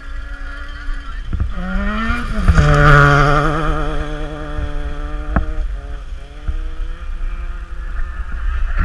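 A car driving past with its engine running: the engine note rises and grows loud about three seconds in, then drops in pitch as it passes and carries on more quietly. A single sharp click about five and a half seconds in.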